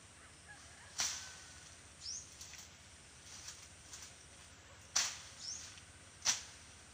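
Sharp swishes of a machete slashing through grass and weeds while the land is being cleared, three strikes at irregular intervals, the last two close together.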